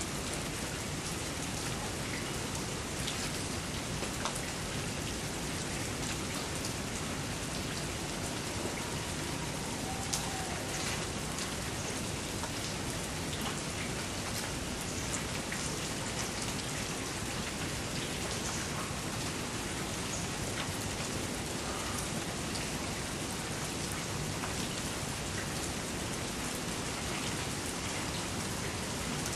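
Steady rain falling: an even hiss with scattered sharp taps of individual drops.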